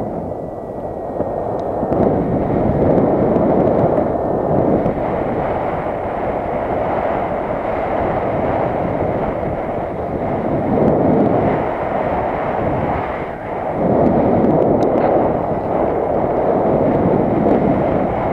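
Wind rushing and buffeting over the microphone, a loud steady roar that swells and eases every few seconds.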